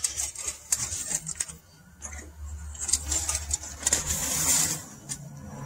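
Paper shop towel rustling and scrunching as an oil dipstick is wiped, in several short bursts, with light clicks and scrapes of the metal dipstick and its tube.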